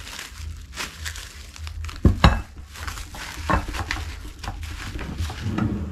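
Plastic wrap crinkling as wrapped bowls and plates are handled, with one sharp knock about two seconds in, the loudest sound, as of a dish set down on the wooden table.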